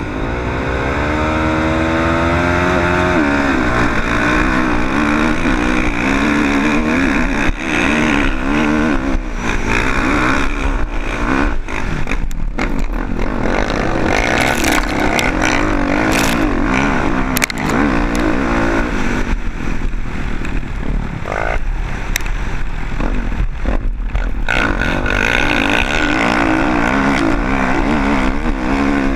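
Motocross bike engine launching at full throttle, its pitch climbing steeply over the first few seconds. It then runs hard over the dirt track, revving up and down with the throttle and gear changes, and briefly drops off a few times.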